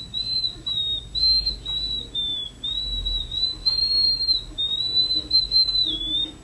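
High whistling: a string of short notes, each wavering a little around the same high pitch, with brief gaps between them.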